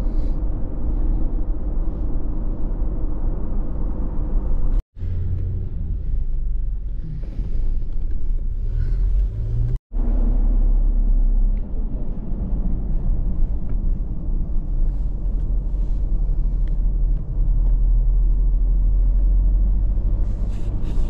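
Steady low rumble of a 4x4 vehicle driving, the road and engine noise dominated by deep bass. The sound cuts out sharply for an instant twice, about five and ten seconds in.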